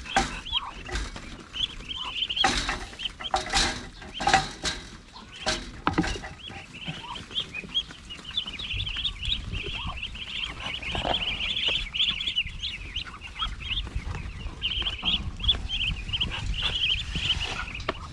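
A flock of native chickens peeping and clucking continuously, many short high calls overlapping, busiest in the second half. Scattered knocks and rustles sound in the first six seconds.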